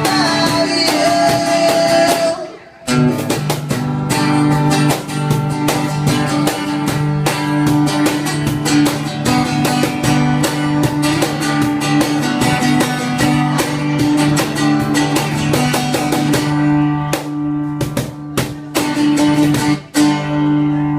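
Guitar playing with a cajon beating time under it, an instrumental stretch of a song. The music drops out briefly about two and a half seconds in and dips again near the end.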